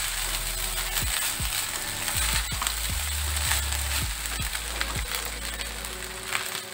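Wooden spatula stirring and scraping cooked rice and vegetables in a nonstick wok-style pan, with many small knocks of wood on the pan.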